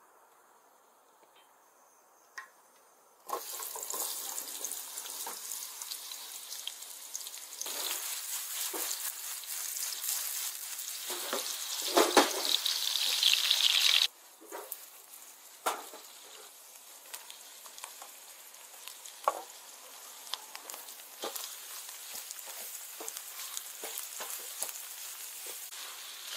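Sliced onions sizzling in hot oil in a large steel frying pan, the sizzle growing louder for about ten seconds. It then drops suddenly to a softer frying as beef tripe is stirred with a wooden spatula, with scattered knocks and scrapes against the pan.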